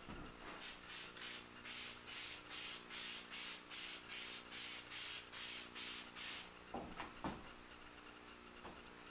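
Aerosol can of spray lacquer hissing in short, quick bursts, about three a second for some six seconds, as a coat of finish goes on. A couple of light knocks follow, over a steady low hum.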